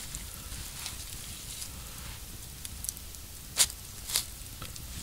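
Campfire crackling: scattered sharp pops, the loudest about three and a half seconds in and another just after four seconds, over a low steady rumble.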